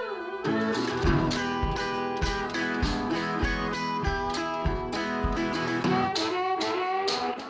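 Background music: guitar-led blues or country with a steady beat.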